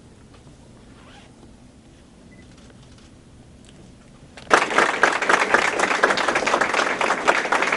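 Quiet room with a few faint clicks, then about four and a half seconds in, a crowd starts applauding loudly.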